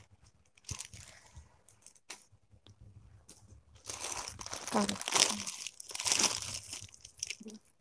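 Packaging crinkling and rustling as it is handled, loudest from about four to six and a half seconds in.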